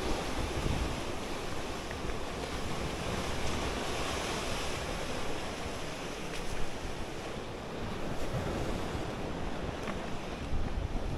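Sea surf washing and breaking against a rocky shore as a steady rushing wash, with wind buffeting the microphone as an uneven low rumble.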